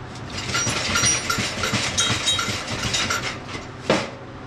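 Suspension salvaged from an old golf cart being bounced on a small cart frame, creaking and rattling in quick repeated squeaks, about three a second, for about three seconds. A single sharp clank follows near the end.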